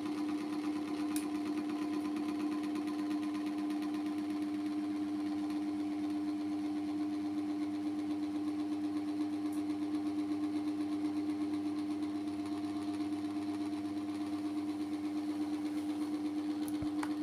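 Steady hum of a small motor with a fast, even pulsing.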